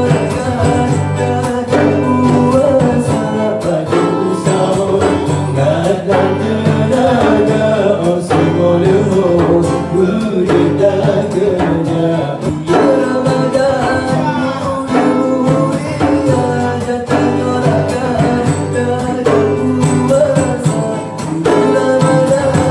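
Men singing a melody with long, ornamented, wavering lines over strummed acoustic guitars and a hand-played frame drum, in a live acoustic performance.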